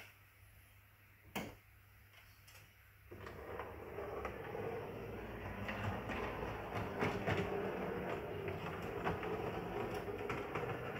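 A model steam tram and trailer running on the layout's track: one sharp click about a second in, then from about three seconds in a steady mechanical running sound with scattered clicks.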